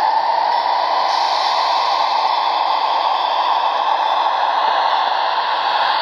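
Onboard sound decoder of an HO scale Athearn GE P42DC model locomotive playing its diesel engine sound through the model's small speaker as the locomotive runs past: a steady, hissing roar, thin with little bass.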